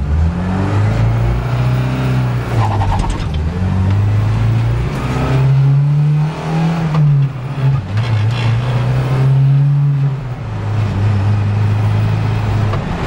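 Porsche sports car's engine heard from inside the cabin, revving up through the gears with the pitch dropping back at each shift, several times, then settling to a steadier run near the end.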